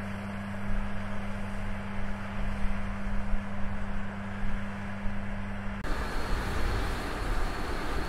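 John Deere X9 1100 combine harvester running as it cuts wheat: a steady machine hum with a constant low drone. About six seconds in, it cuts abruptly to a broader, fuller machine noise.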